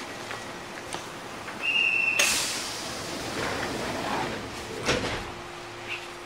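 Kintetsu 8000-series train doors closing: a short high whistle, then a sudden hiss of air that fades over a couple of seconds, and a thud about five seconds in as the doors shut.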